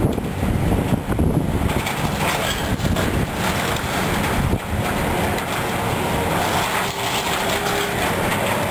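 Demolition machinery running while tearing out a building's roof, with irregular crunching and clattering of debris.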